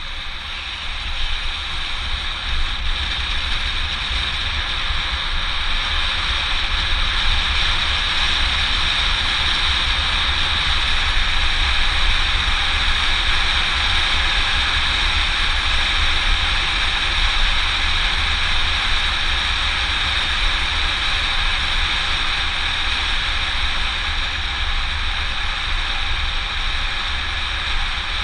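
Wind rushing over an action camera's microphone, with tyre noise, as a mountain bike rolls fast down an asphalt road. It grows louder over the first several seconds as speed builds, then holds steady.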